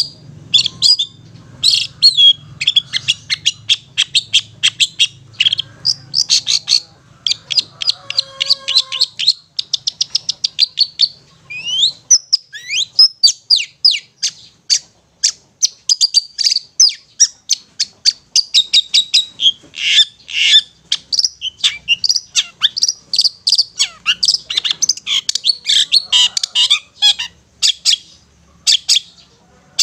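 Long-tailed shrike (cendet) singing in the rapid 'ngetet' style: sharp, chattering notes repeated several times a second in long runs, with a few sweeping notes mixed in partway through.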